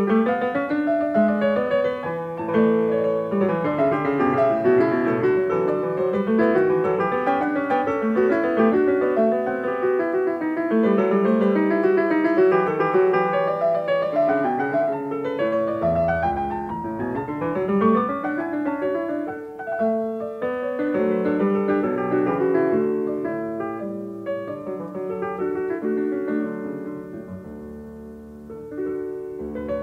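Solo piano music playing, with quick runs of notes; it grows softer near the end.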